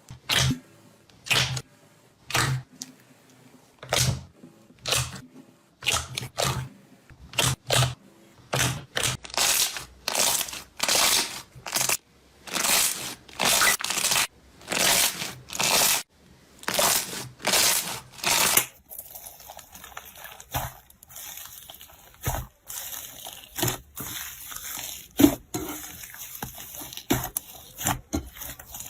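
Slime being pressed and squeezed by hand close to the microphone, in repeated strokes about one a second that grow longer towards the middle. A little over halfway through, it changes to a quieter steady hiss with small clicks and crackles.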